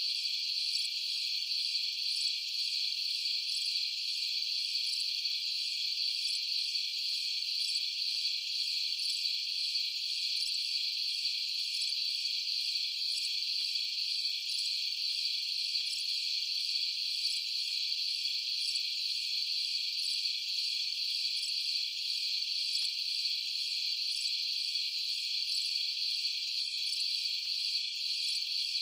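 A dense, steady chorus of night crickets trilling, high-pitched and unbroken.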